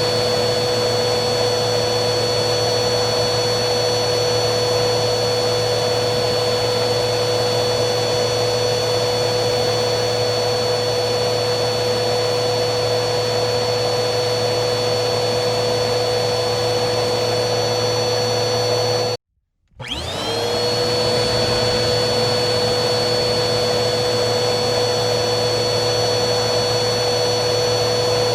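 Vacuum cleaner motor running steadily with a constant whine over airflow noise. About two-thirds of the way through, it cuts out abruptly for about half a second, then comes back with the motor whine rising as it spins back up to speed.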